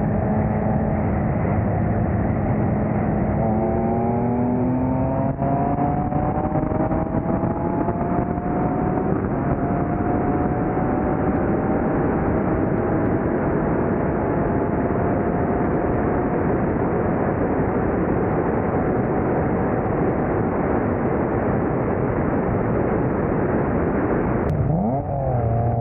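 Acura TL's cammed J32 V6 at full throttle in a roll race, its engine note climbing slowly through a long pull under heavy wind rush on the microphone. Near the end the sound cuts abruptly to a steady, lower engine note.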